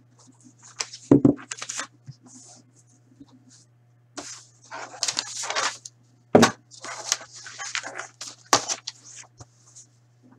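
Objects being handled on a tabletop: bouts of rustling and clatter, with three sharp knocks as something is set down, over a steady low hum.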